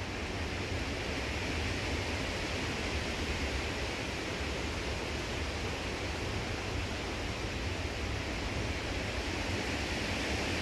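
Wind rushing through the trees in a steady, rising and easing hiss, with low wind rumble on the microphone.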